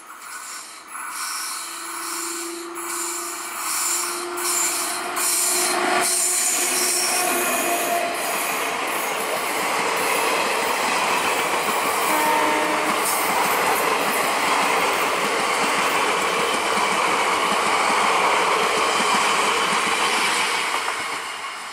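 Electric passenger train passing close at speed. It is quieter on the approach, then a loud steady rush of wheels on rail builds from about six seconds in and holds until it fades near the end, with a short horn note about halfway.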